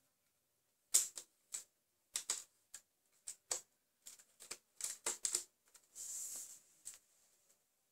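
LEGO brick rifle being handled off-camera: a series of sharp, irregular plastic clicks and knocks, with a brief scraping rustle about six seconds in.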